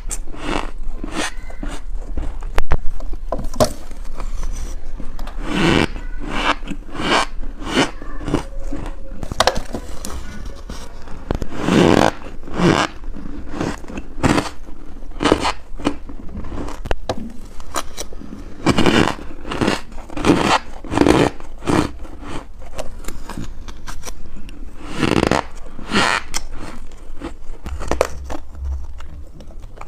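Close-up bites and crunching of freezer frost: repeated irregular crisp crunches and scrapes as chunks of frost are bitten and chewed.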